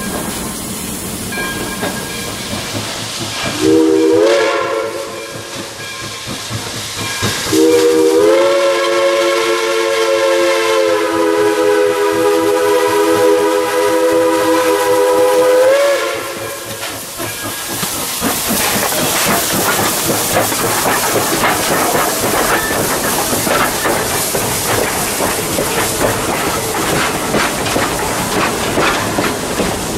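Boone & Scenic Valley 8419, a Chinese-built JS-class steam locomotive, sounding its multi-tone whistle: a short blast about four seconds in, then a long blast of about eight seconds, its tones bending up slightly as each blast starts and ends. After that the train passes close by, with a steady rushing noise and the clatter of wheels over the rail joints.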